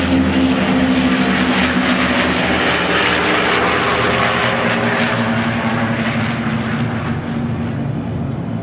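Piston engines of a formation of three propeller planes passing overhead, a loud steady drone with a rushing noise under it, easing off slightly near the end.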